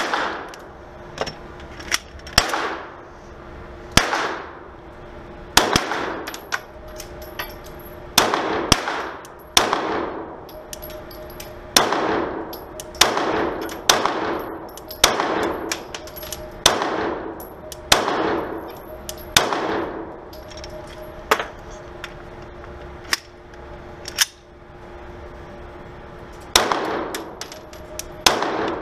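Glock 17 9mm pistol firing aimed shots, some twenty in all, mostly about a second apart with a few short pauses, each shot ringing with a long echo off the walls of an indoor range.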